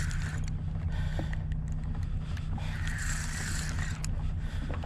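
Fishing reel buzzing in short spurts of about a second each, with a big barracuda on the line, over the steady low hum of the boat's motor running underway.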